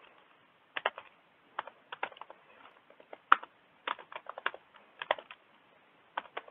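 Typing on a computer keyboard: short clusters of keystrokes with brief pauses between them, as a line of code is entered.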